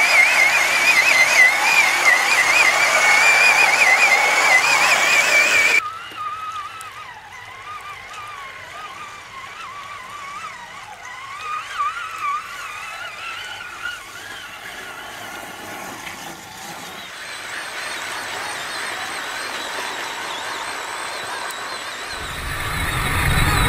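Traxxas Summit RC truck's electric motor and drivetrain whining as it drives through a river, the pitch wavering up and down with the throttle, over splashing water. The whine is loud for about six seconds, then stops suddenly and carries on much fainter. Near the end, a low rushing water noise builds.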